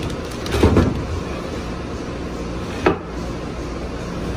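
Parts and packaging handled on a workbench: a brief clatter about half a second in and a single sharp knock about three seconds in, over a steady low rumble.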